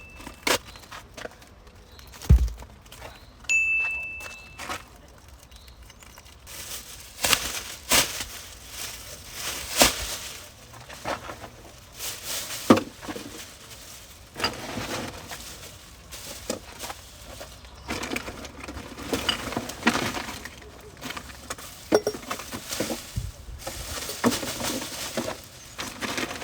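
Collected litter being handled and repacked into a bag: repeated clinks and knocks of bottles and cans with rustling of plastic bags, irregular throughout.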